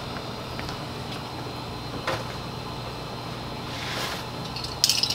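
Anova Precision Cooker sous vide circulator running in a pot of water: a steady low motor hum with water churning, plus a faint click and a few light knocks near the end.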